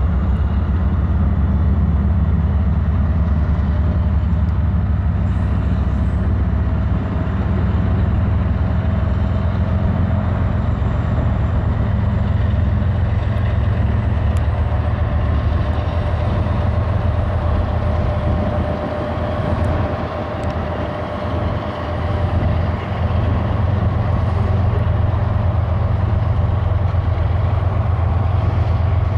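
Kansas City Southern EMD SD70ACe diesel locomotives pulling a freight train away under power, their engines running with a steady deep drone as covered hopper cars roll past behind them.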